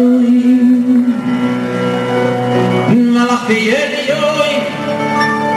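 A man singing long held notes into a microphone over live band accompaniment, his voice sliding up in pitch between phrases about halfway through.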